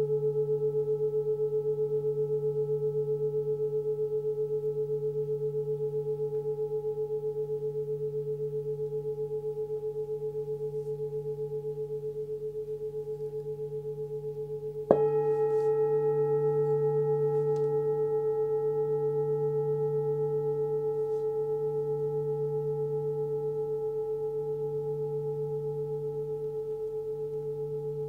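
A 26 cm hand-forged Sun Moon singing bowl tuned to D at about 146 Hz, ringing with a slowly wavering low hum and a brighter overtone above it. About halfway through it is struck once, and the renewed ring then fades slowly.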